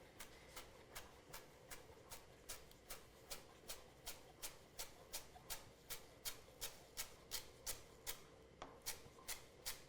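Knife chopping a bunch of fresh dill on a cutting board: quiet, even chops about three a second.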